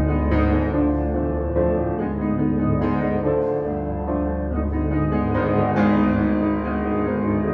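Background piano music, slow held chords with a new chord about every second or so.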